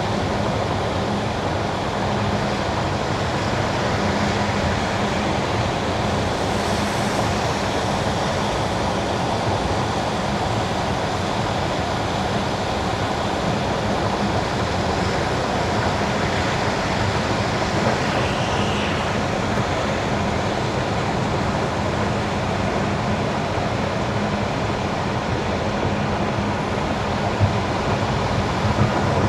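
Car tyres hissing steadily on wet winter asphalt, with a low steady drone of the car underneath.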